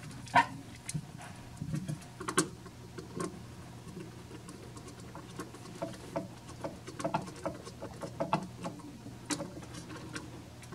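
Irregular light clicks and scrapes of a small screwdriver working a terminal-block screw, clamping a thin wire into the terminal.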